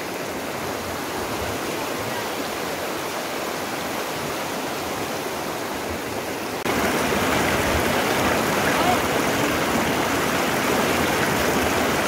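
Shallow mountain river rushing over stones, a steady hiss of water that jumps louder a little past halfway through.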